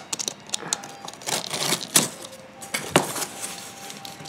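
Box cutter slicing the packing tape on a cardboard box, with scraping and a run of small clicks and taps; the two sharpest come about two and three seconds in.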